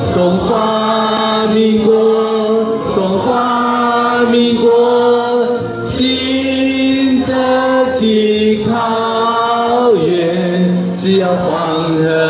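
A large group of amateur singers singing together in unison in Mandarin, in long held notes with short breaks between phrases.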